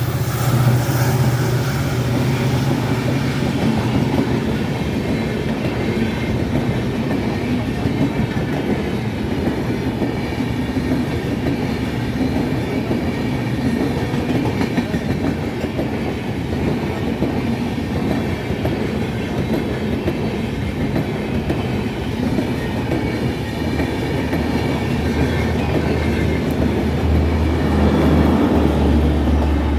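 Passenger train passing at speed: LHB coaches rolling by with steady wheel clatter and rushing noise. The WDP4D diesel locomotive's low engine hum fades in the first couple of seconds, and a deep low drone builds again near the end.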